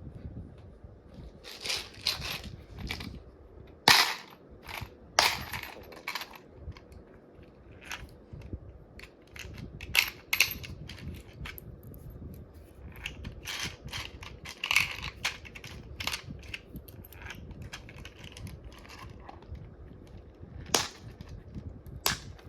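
Irregular clicks, taps and short scrapes of a 120mm PC case fan being handled and screwed onto the metal power supply shroud with fan screws.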